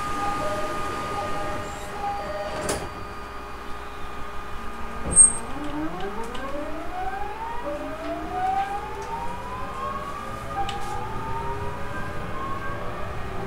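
209 series electric train's GTO-thyristor VVVF inverter and traction motors pulling away: from about five seconds in, a run of tones rising in pitch, one after another, as the train accelerates. A sharp thump just before the rising tones begins is the loudest moment.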